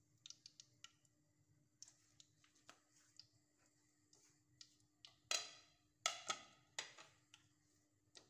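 Hot frying oil in a pot crackling faintly with scattered small pops, and four louder sharp cracks a little past the middle.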